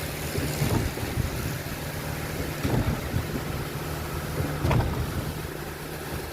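Machinery engine running steadily, with a few short knocks about three and five seconds in.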